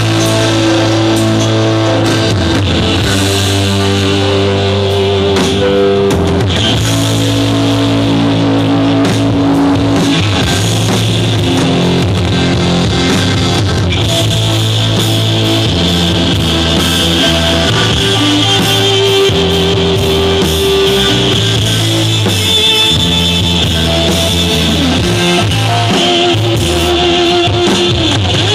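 Live band playing an instrumental rock passage: electric guitar lines with held notes over a steady bass guitar and drum kit.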